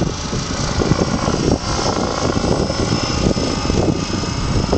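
Strong wind blowing across the microphone, a loud, gusty rumble.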